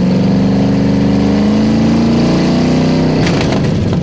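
Ford 5.0 (302 HO) V8 in a Foxbody Mustang revved hard: the engine note climbs steadily for about two seconds, holds, then drops back toward idle about three seconds in.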